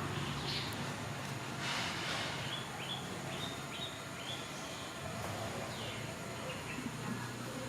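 A bird chirping a quick run of about six short, high notes over steady outdoor background noise, with a brief rustle about two seconds in.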